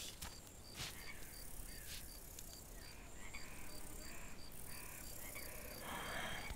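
Faint outdoor marsh ambience: a cricket-like insect chirping in a quick, even pulse, about three chirps a second, with softer calls every half second or so.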